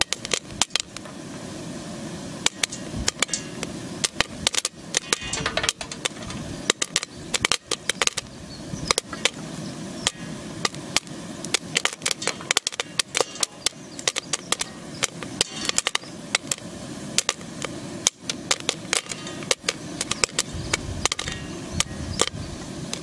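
Popcorn kernels popping in a hot metal pan: sharp, irregular pops several times a second over a steady hiss, with many kernels still unpopped and the popping well under way.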